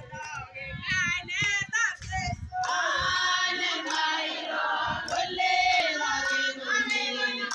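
A group of women singing together as they walk, clapping along. The singing thickens into many voices about two and a half seconds in.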